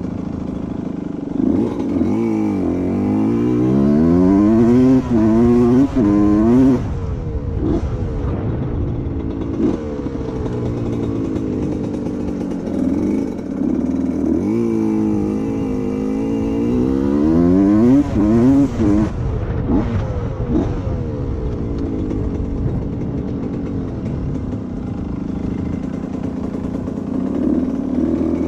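1990 Suzuki RM125's single-cylinder two-stroke engine being ridden hard: its pitch climbs in repeated rising sweeps as it accelerates up through the gears, dropping back at each shift, in two main pulls a couple of seconds in and again around the middle, with steadier running between.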